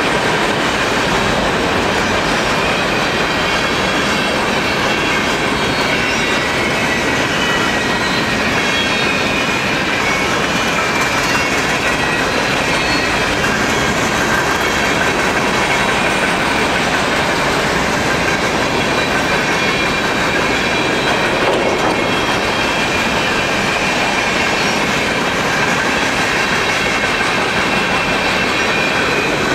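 Freight cars of a long train rolling past at speed: steady rumble and clatter of steel wheels on the rails, with a thin high wheel squeal running through it.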